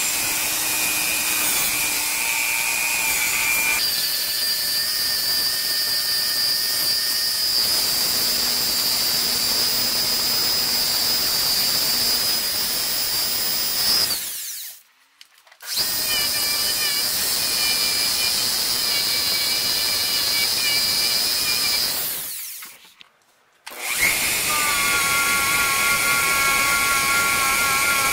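Small high-speed power tool spinning a bit against a brass shotgun shell head, with a steady high whine over a grinding hiss. The pitch shifts about four seconds in, and the tool stops and restarts twice, about halfway through and again near the end.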